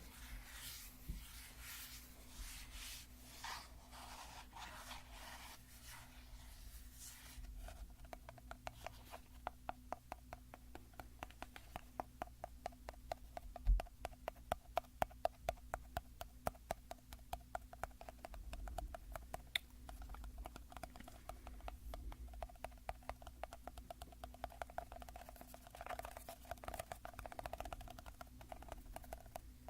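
Scratching on a bottle for the first several seconds, then fast, light, even tapping on it, several taps a second, with a faint ringing tone.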